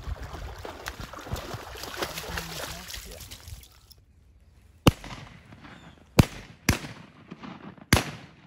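A dog splashing through shallow water carrying a retrieved duck, stopping abruptly about four seconds in. Then four shotgun shots at ducks, the middle two close together, each with a short echo.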